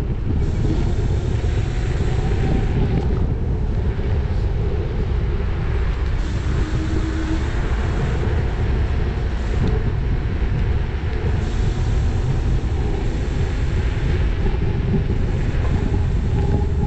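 Steady, loud rumble of wind and road noise while riding a Dualtron electric scooter.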